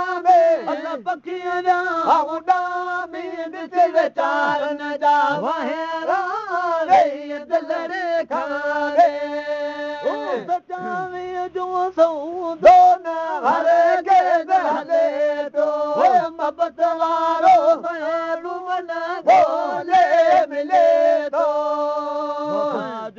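A solo voice singing a Sindhi molud, a devotional song in praise of the Prophet, in long held notes with bending ornaments, unbroken through the stretch.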